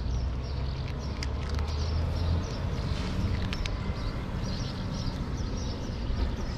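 Two cats crunching dry kibble close by: scattered sharp crunches over a steady low rumble.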